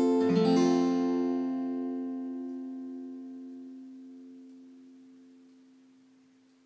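Acoustic guitar playing the song's last few notes, then its final chord ringing out and slowly fading away.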